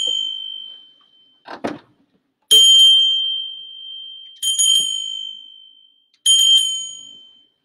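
Small altar bell rung at the consecration and elevation of the host: three rings about two seconds apart, each a bright ringing tone made of a few quick strikes that fades out over a second or so. A short soft thump and rustle comes between the first rings.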